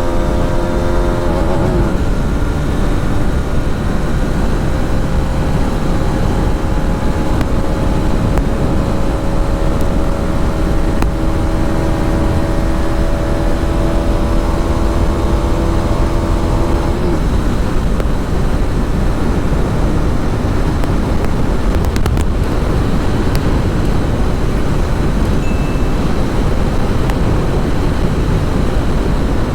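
Hero Xtreme 250R's single-cylinder engine running at a steady road speed, its note climbing slowly, with a brief dip about a second and a half in. About 17 seconds in the engine note drops away, leaving mostly wind and road rumble.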